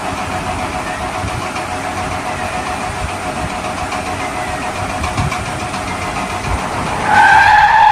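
A steady engine running sound, with a faint steady whine over it. About seven seconds in, a louder steady pitched tone cuts in.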